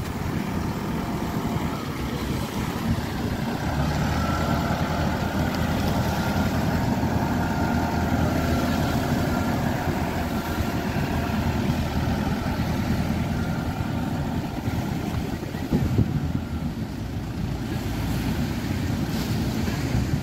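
Caterpillar 416D backhoe loader's diesel engine running steadily as the machine drives along the beach with a bucket of sand. It grows louder over the first few seconds as it comes close, then eases a little in the second half as it moves past.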